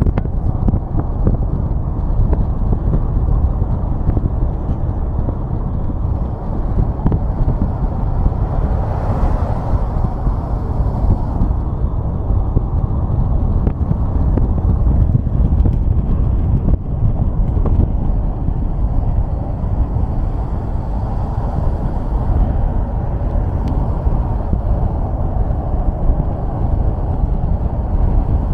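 Steady low rumble of a car's road and engine noise while driving on a highway, with a brief swell of higher hiss about nine seconds in.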